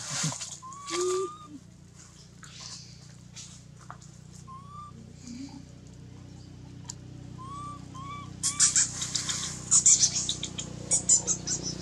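A few short chirping calls, each rising then falling in pitch, then a loud, dense run of clicks and rustles from about eight seconds in.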